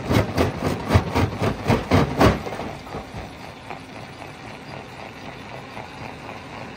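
Rock-crushing machinery banging rapidly and hard, about four or five blows a second. The blows stop a little over two seconds in, leaving a steady mechanical running.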